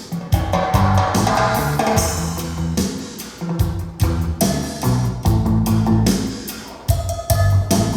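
Recorded music with drum kit, bass and guitar, played back over a Børresen Acoustics loudspeaker system driven by Gryphon Audio electronics: deep held bass notes under sharp drum hits.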